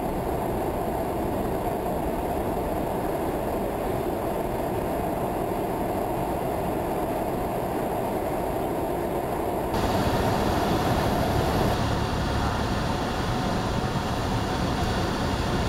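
Steady drone of a Cessna 172's piston engine and propeller with rushing airflow, heard inside the cabin in flight. About ten seconds in the sound changes abruptly, becoming slightly louder and brighter.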